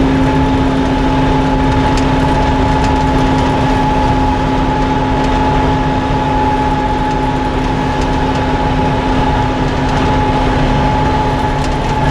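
Tractor engine and John Deere 535 round baler running steadily, a constant drone with a steady hum and a higher whine over the engine's rumble.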